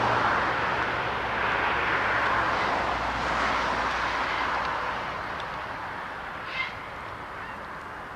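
Jet aircraft engine noise, a steady rushing roar that fades gradually as the aircraft moves away. There is a brief high chirp about six and a half seconds in.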